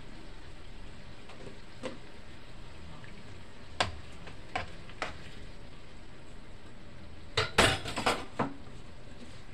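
A cooking spoon clinking and scraping against a stone-coated nonstick pan while stirring a simmering vegetable stew: a few single clinks, then a quick cluster of louder knocks about three-quarters of the way through, over a steady low hiss.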